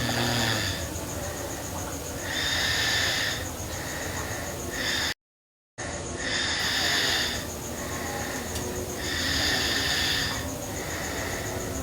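A sleeping girl snoring, with slow rhythmic breaths roughly every three seconds. The sound cuts out for just under a second about five seconds in.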